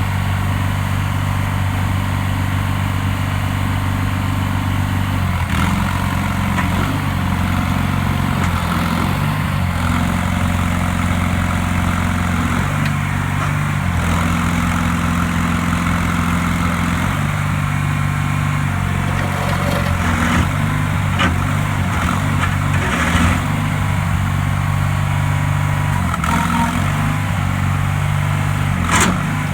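Terramite compact loader backhoe's engine running steadily, its note shifting several times as the machine is worked, with a few sharp knocks near the end.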